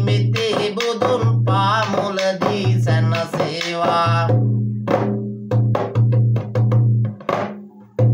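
Viridu singing, a man's voice chanting a verse over a rabana frame drum beaten by hand. The voice drops out about halfway, and the drum goes on alone with a quick run of strokes to a close.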